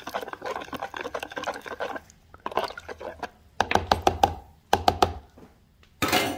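A spoon stirring a liquid mix of beef broth, Worcestershire sauce and seasonings in a bowl, clinking quickly against the sides for about two seconds, then in a few shorter sloshing bouts, with a brief louder noise near the end.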